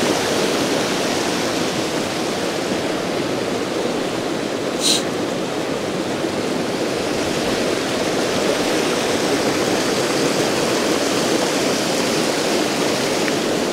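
Baspa mountain river rushing, a steady loud noise of flowing water. A brief high-pitched sound cuts through it about five seconds in.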